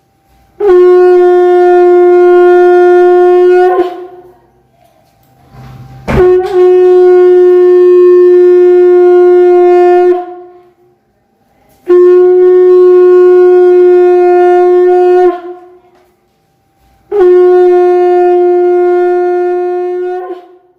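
Shankh (conch shell trumpet) blown in four long, steady blasts on one note, each about three to four seconds, with short pauses between. A sharp click comes just before the second blast.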